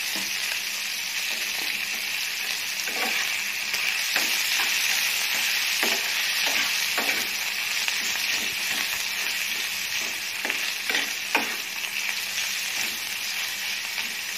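Chicken strips with onion and garlic sizzling in oil in a frying pan, turned with a metal spatula that scrapes across the pan every second or two.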